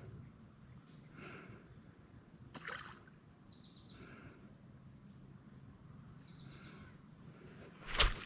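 Quiet outdoor ambience with birds calling: soft repeated calls and two short descending trills. A sudden thump or splash near the end is the loudest sound.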